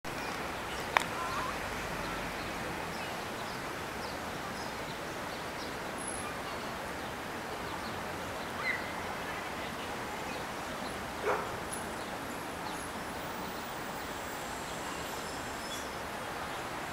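Steady hiss of outdoor background ambience. A sharp click comes about a second in, and two brief calls follow near the middle, the second falling in pitch.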